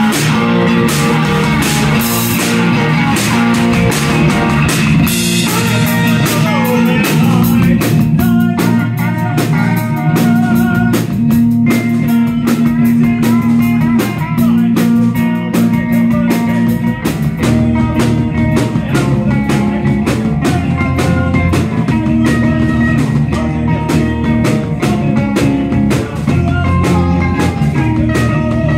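A live band playing electric guitar, electric bass and drum kit together, loud and steady with frequent drum and cymbal hits under the guitar lines.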